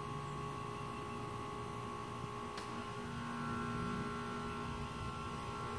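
A steady hum made of several held tones, with a single faint click about two and a half seconds in.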